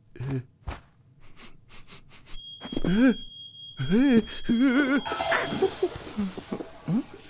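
A man's wordless cartoon voice: short breathy grunts, then a sing-song, warbling vocal flourish with a wobbling pitch. It gives way about five seconds in to a steady hiss.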